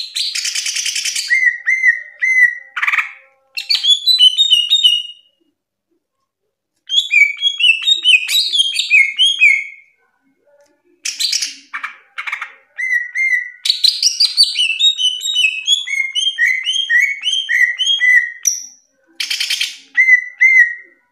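Green leafbird (cucak ijo) singing: bursts of quick, sweet whistled notes strung into long phrases, broken by short pauses and harsh rasping calls.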